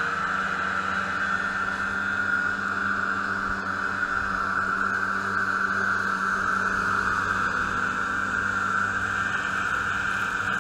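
Snowmobile engine running steadily at cruising speed, a constant droning whine with no change in pitch, heard from aboard the moving sled.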